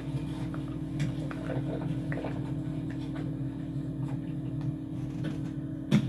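A steady low machine hum, with scattered soft clicks and knocks over it and one sharp, loud knock just before the end.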